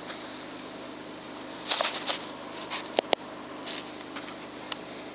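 Steady faint high hiss with scattered rustling clicks, and two sharp cracks close together about three seconds in.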